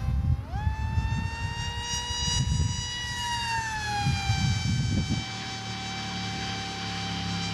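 Multiplex FunJet RC jet's electric motor and pusher propeller whining in flight; the pitch rises about half a second in, holds, then drops around three seconds in and stays lower. Wind buffets the microphone with low gusty rumble for the first few seconds.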